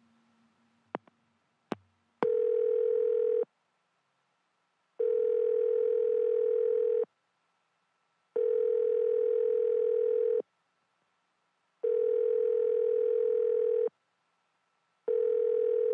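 Telephone ringback tone heard through the handset: a steady low tone beeping on for about two seconds and off for about one and a half, five times, as the line rings waiting for the other end to pick up. Two sharp clicks come just before the first beep.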